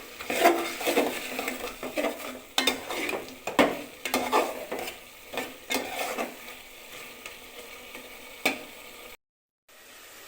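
Meat braising with spices in a pot, sizzling as it is stirred and scraped against the pot in quick irregular strokes, busiest for the first six seconds, then quieter, with a brief dropout to silence near the end.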